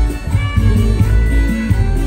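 Live band music: an instrumental passage on keyboards, guitar and drums with a strong, pulsing bass beat.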